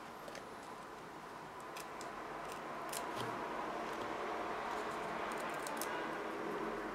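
Faint rustling and a few small clicks of cardstock and adhesive backing being handled and peeled, over a steady background hiss that slowly grows a little louder.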